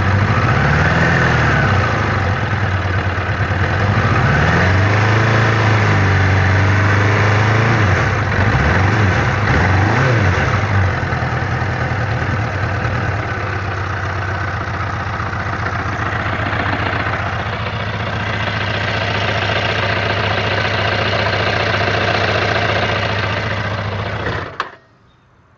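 Suzuki Katana 600's inline-four engine running at idle. It is revved up and falls back several times in the first ten seconds or so, then settles into a steady idle, and stops abruptly near the end. The owner suspects the odd noise in it may be a knock.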